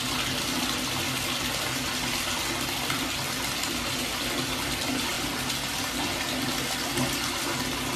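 Bathtub faucet running steadily, its stream of water splashing into the tub.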